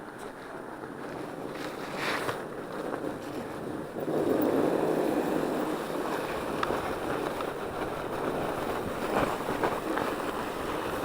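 Rushing noise of a Norco Bigfoot 1S fat bike descending a packed snow trail: wind on the microphone and the fat tyres rolling over snow. It grows louder about four seconds in, with a few small knocks from bumps.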